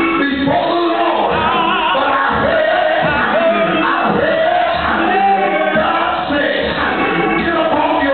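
Gospel singing in church by several voices over music, loud and continuous.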